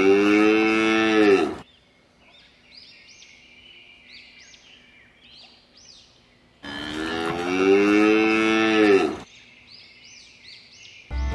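A cow mooing twice, each a long lowing call of about two seconds that falls in pitch at its end. Faint high chirps sound in the gaps between the calls.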